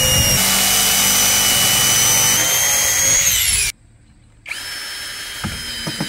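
Power drill running steadily with a high whine, winding down about three and a half seconds in. After a short pause a quieter steady motor whine starts near the end.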